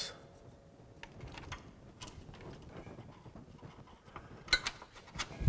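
Faint handling and light clicking of a small metal brake-line bracket and the ABS sensor wire being fitted back in place, with two sharper metallic clicks near the end.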